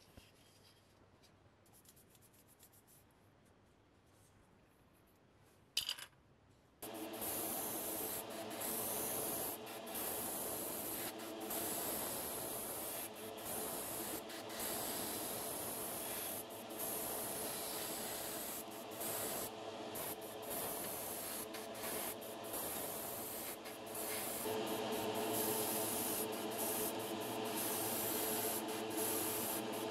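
Hiss of paint spraying: Mr. Primer Surfacer 1000 from an aerosol can, then an airbrush. It starts after a short click about seven seconds in, runs steadily over a low hum with brief breaks, and gets louder near the end.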